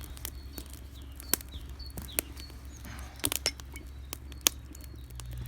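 Campfire crackling: burning wood snapping and popping at irregular intervals, a handful of sharper pops standing out.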